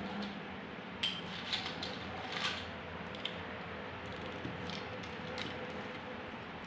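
Plastic LEGO bricks clicking and clattering as they are handled and pressed onto a brick frame: several short, light clicks, the sharpest about a second in and around two and a half seconds in, over a faint steady hum.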